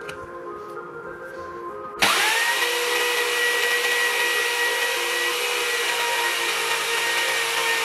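Electric jigsaw, clamped upside down in a bench vise, switched on about two seconds in: its motor whines up quickly and then runs steadily at full speed.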